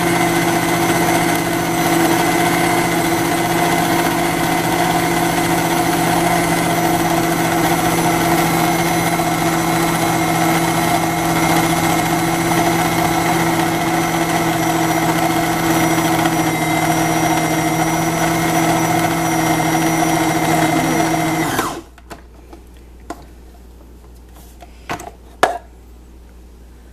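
Electric food processor motor running steadily, chopping eggs in its bowl, then switching off about three-quarters of the way through. A few light knocks follow.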